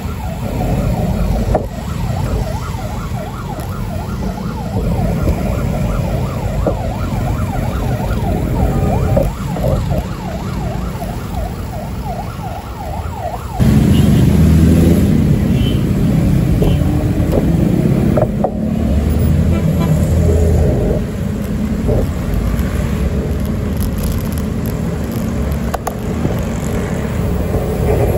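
Road traffic rumble with a siren yelping in quick, repeated up-and-down sweeps for about the first half. About halfway through, a louder, heavier low rumble suddenly takes over and the siren is no longer heard.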